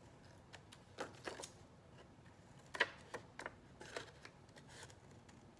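Scissors making a few short, irregular snips through scrapbook paper, with light paper rustling; the sharpest snip comes about three seconds in.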